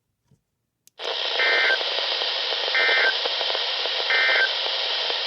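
Weather radio hiss that comes up about a second in, carrying three short, evenly spaced warbling data bursts. These are the SAME digital header that opens an Emergency Alert System message on NOAA Weather Radio.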